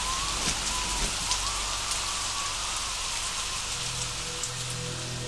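Steady rain hiss with scattered drop patter. A faint wavering whistle runs over the first few seconds, and low held music notes come in near the end.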